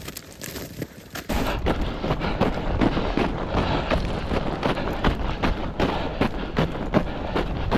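Rapid, uneven thumps and crunches, about two or three a second, over a steady low rumble that starts a little over a second in.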